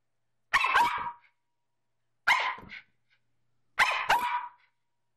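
Large inflatable ball being smacked back and forth in play with a small dog: three sharp hits about a second and a half apart, each with a brief hollow ringing.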